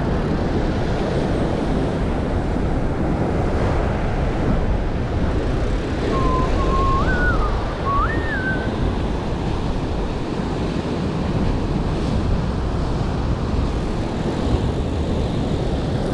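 Wind buffeting the microphone over ocean surf washing against lava rocks. About six seconds in, a short whistled phrase of a few stepped notes sounds over it for two to three seconds.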